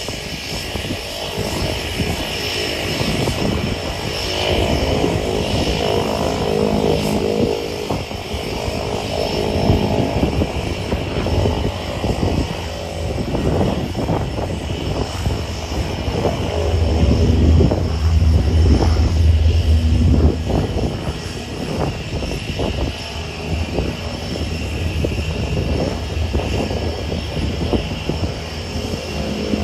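Cessna 172K Skyhawk's four-cylinder Lycoming engine and propeller at climb power as the plane departs and climbs out overhead. The sound grows to its loudest and deepest about seventeen to twenty seconds in, then eases off.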